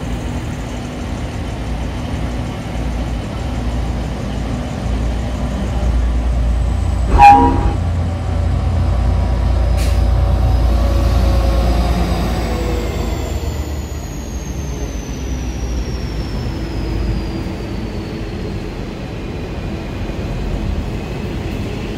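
V/Line N class diesel-electric locomotive passing at close range, its engine rumble building as it draws level, with a short horn toot about seven seconds in. Its passenger carriages then roll past on the rails with a steady clatter, and a faint high whine slowly falls in pitch.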